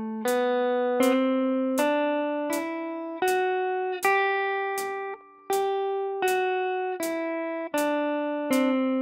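Hollow-body electric guitar picking single notes of a G major scale in open position at a slow, even pace of about four notes every three seconds, open strings and notes on neighbouring strings left to ring into one another. The sound drops away briefly about five seconds in before the next note.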